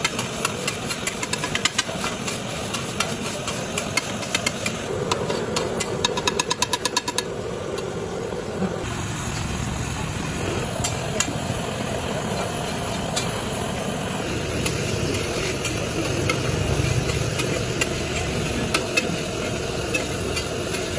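Liver frying on an iron tawa: a steady sizzle with the spatula clicking and scraping against the griddle, including a quick run of taps about five to seven seconds in.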